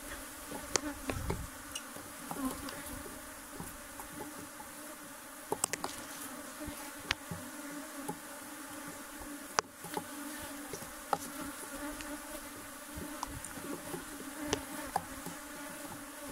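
Honey bees buzzing in a steady hum over an opened hive, with scattered sharp clicks and knocks.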